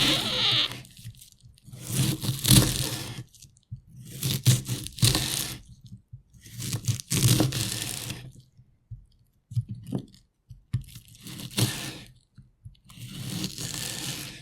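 Knife chopping an onion on a cutting board: crisp crunching cuts in quick runs of a second or so, with short pauses between the runs.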